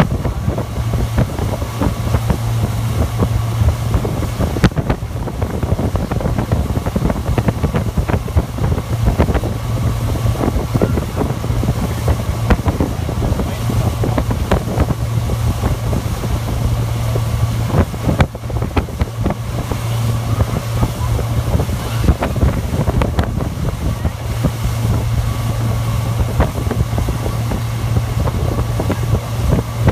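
Motorboat engine running steadily at towing speed as a low drone, with wind buffeting the microphone.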